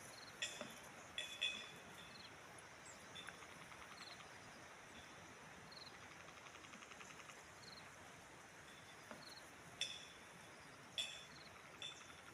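Faint outdoor ambience with small wildlife calls: a short high chirp repeating about once a second, and a rapid trill around the middle. A few sharp clinks stand out, twice near the start and three times near the end.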